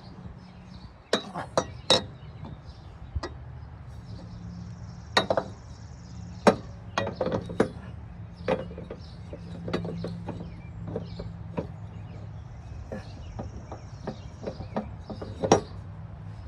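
Irregular metallic clinks and knocks of tools and mower parts being handled during a lawn mower belt repair, a dozen or more sharp hits scattered unevenly, two of them louder than the rest.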